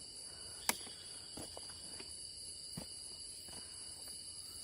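Steady high-pitched drone of night insects, with a sharp click under a second in and a few faint knocks after it.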